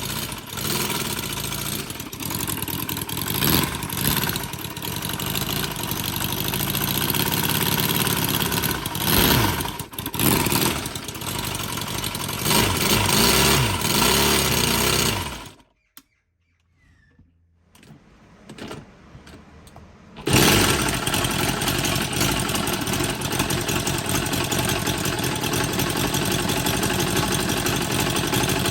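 Panther Pup 45cc four-cylinder four-stroke model engine running, its speed rising and falling over the first half, with rattles that the builder puts down to worn timing gears. The sound cuts out for about five seconds a little past halfway, then the engine is heard running steadily again.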